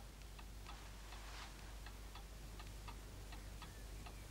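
A clock ticking faintly and steadily, a little under three ticks a second, over a low room hum.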